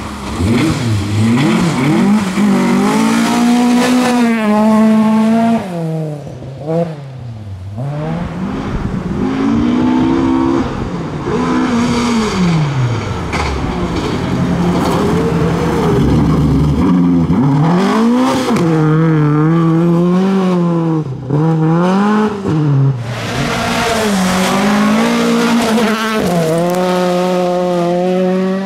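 Tuned rear-wheel-drive Volvo rally car engines revving hard. The pitch climbs and drops again and again through gear changes and lifts, with a longer dip about seven seconds in.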